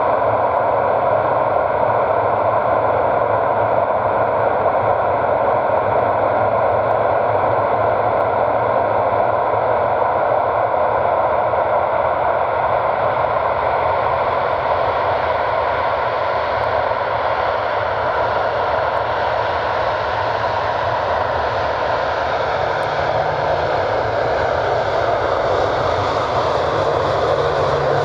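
Lockheed C-130T Hercules's four Allison T56 turboprop engines running steadily, a loud continuous drone with a layered tone that eases slightly midway and picks up again near the end.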